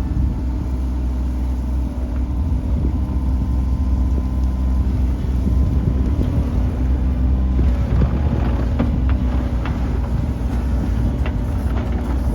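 Mini excavator engine running steadily. From about eight seconds in there is scraping and clattering, typical of the bucket spreading crushed stone.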